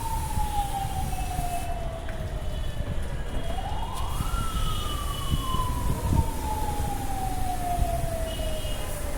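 A siren wailing: a single tone sinks slowly in pitch for several seconds, sweeps quickly back up about four seconds in, then sinks slowly again, over a steady low rumble.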